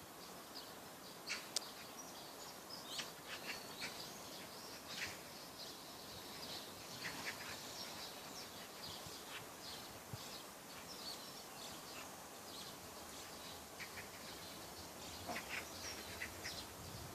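Birds calling, many short high chirps scattered throughout, over a steady background hiss.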